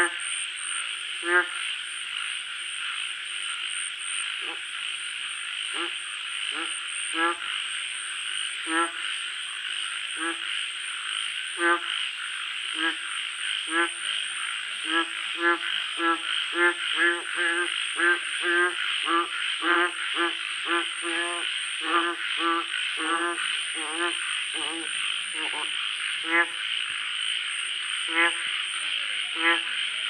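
A frog croaking over and over in short, pitched calls. The calls come sparsely at first, bunch up to about two a second in the middle, then thin out again, over a steady high-pitched background buzz.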